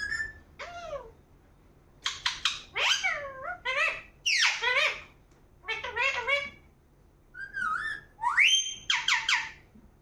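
Pet Indian ringneck parakeet calling: a string of short whistled and squawky notes that swoop up and down in pitch, coming in repeated bursts with brief pauses between.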